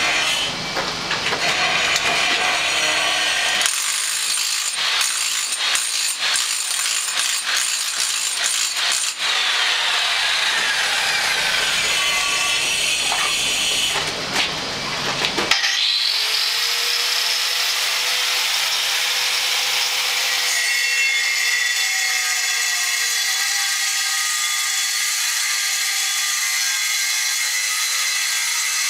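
Power tool chasing a groove into a concrete wall: loud, continuous cutting noise. About halfway through, the motor's whine rises and levels off into a steady high tone.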